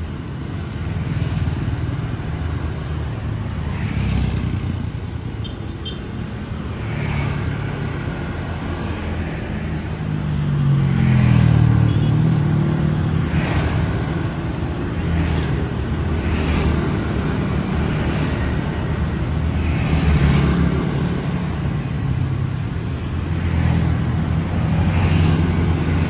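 Street traffic of motorbikes and cars passing close by one after another, engines rumbling and tyres hissing on the road, each vehicle swelling and fading in turn every second or two. The loudest pass comes about eleven seconds in.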